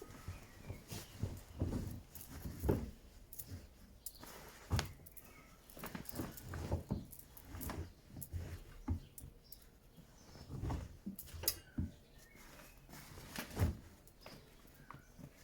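Bosch WAT286V0 washing machine early in its wash cycle: irregular soft thumps and light clicks as the drum turns and the laundry tumbles.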